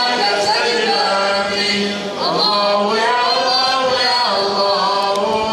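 Men chanting a melodic Islamic religious chant, the voices holding long, gliding notes with a brief dip about two seconds in.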